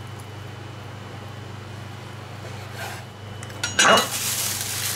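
Kitchen prep handling over a low steady hum: a few sharp clicks and a knock near four seconds in as a chef's knife is set down on a wooden cutting board beside a steel bowl, then a plastic bag crinkling as it is picked up and handled.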